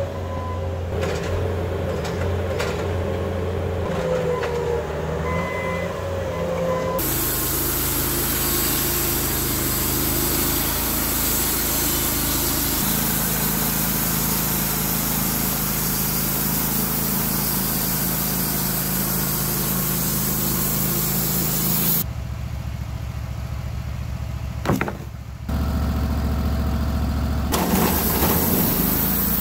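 A skid steer's engine running under load with a wavering whine over it, then, about seven seconds in, an abrupt switch to the steady running of a Wood-Mizer LT15 Wide portable sawmill's engine, with a couple more sudden changes in the sound near the end.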